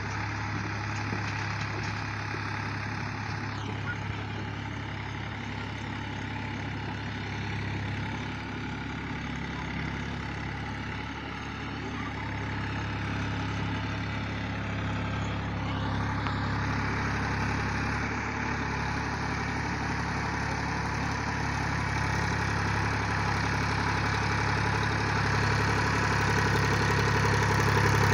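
Massey Ferguson 7250 DI tractor's three-cylinder diesel engine running steadily under load while pulling a land leveller, getting louder through the second half as it comes closer.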